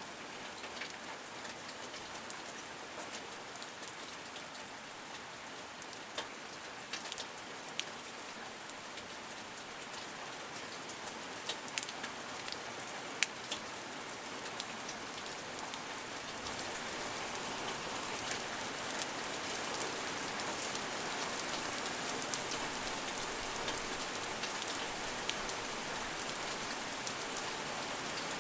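Steady rain: a hiss of rainfall with separate drops ticking sharply close by, growing gradually heavier through the second half.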